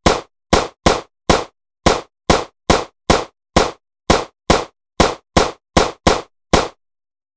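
A run of about sixteen short, sharp hit sound effects at uneven spacing, each cutting in suddenly and dying away within about a quarter second. Each hit marks a word of an animated title popping onto the screen. The hits stop near the end.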